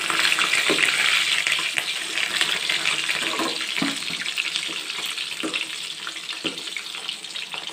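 Raw-mince mutton kababs frying in hot oil: a loud, steady sizzle and crackle, strongest in the first couple of seconds as they are turned over. A few short knocks of a metal slotted spoon against the pan.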